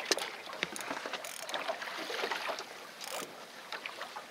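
Water lapping and splashing against the side of a drifting fishing boat, with scattered small clicks and two short bursts of hiss, about a second in and again about three seconds in.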